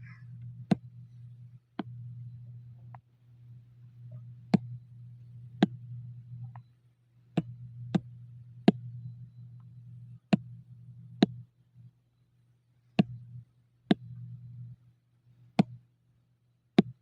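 Computer mouse clicking: about fourteen sharp single clicks at uneven intervals of roughly a second, over a low hum that keeps cutting in and out.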